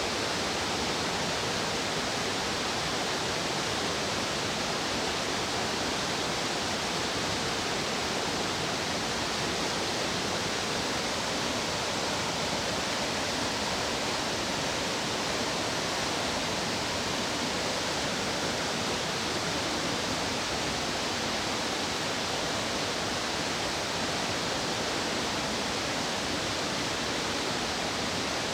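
Steady, unbroken rush of fast-flowing stream water.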